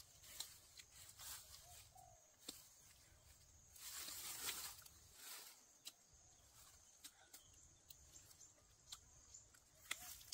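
Near silence: faint scattered clicks, with a soft rustle about four seconds in.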